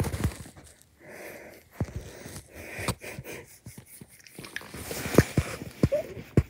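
A small flat-faced dog licking, with irregular wet smacking clicks of its tongue and mouth and noisy breathing between them.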